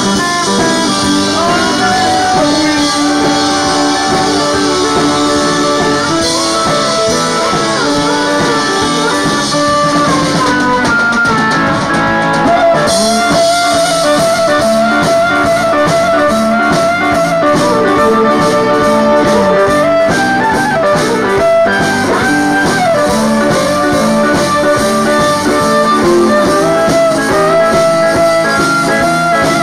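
A Cajun band playing live: button accordion and fiddle carrying the tune over guitar, at a steady full level throughout.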